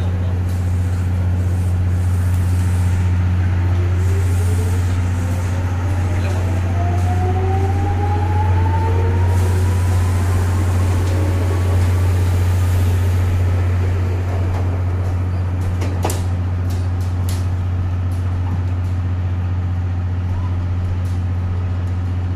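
Chichibu Railway electric commuter train pulling away from a station platform: its motor whine rises steadily in pitch as it accelerates past, over a steady low hum. A few sharp clicks follow in the later part.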